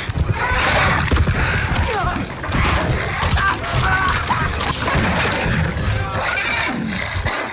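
Film sound effects of a warg fight: a chained warg snarling as it charges and mauls a man, among crashes, thuds and chain rattle, thick and continuous.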